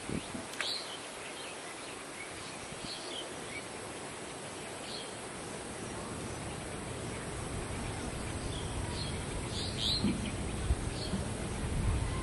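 Steady background hiss with short bird chirps scattered through it, several coming close together near the end.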